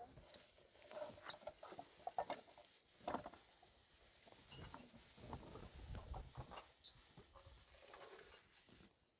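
Faint, scattered small clicks and rustles of objects being handled, with a few soft thuds.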